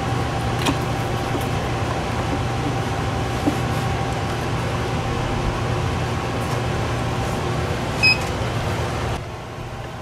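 Steady mechanical hum, with a few light clicks and knocks as a power cord is plugged into the fridge's DC socket. About eight seconds in there is a sharp knock with a brief high tone, and the hum drops off abruptly near the end.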